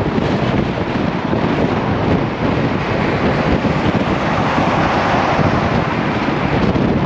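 Loud, steady rushing noise with a low rumble underneath, starting suddenly just before and holding even throughout.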